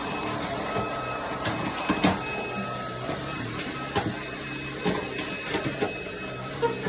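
Vacuum cleaner running with a steady whine, broken by scattered clicks and knocks, the sharpest about two seconds in.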